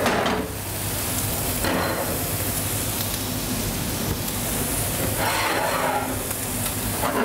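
Chanterelles, potatoes and shrimp frying in butter in several pans on a gas range, a steady sizzle with a louder swell about a second and a half in and another around five seconds. The chanterelles' released liquid is cooking off in the pan.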